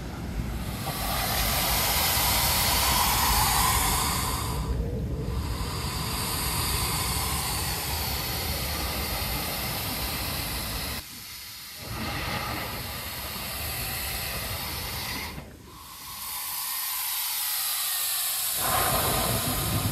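Ocean surf breaking over a lava-rock shoreline: a loud, steady rushing hiss of foam and spray that swells in the first few seconds and dips sharply twice later on.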